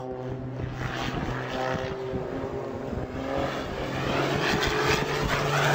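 Small propeller plane's engine droning steadily as the plane spins down trailing smoke, growing gradually louder.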